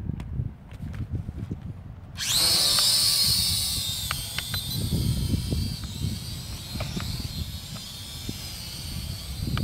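A small quadcopter drone's electric motors and propellers start about two seconds in with a sudden high-pitched whine of several tones. The whine is loudest for the first second or so, then eases slightly and runs on steadily as the drone flies.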